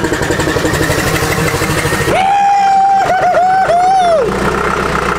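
Cold diesel engine of a heavy machine being cranked over by its starter with a rhythmic chugging, then catching about two seconds in and running. A loud wavering whistle-like tone sounds over it for about two seconds.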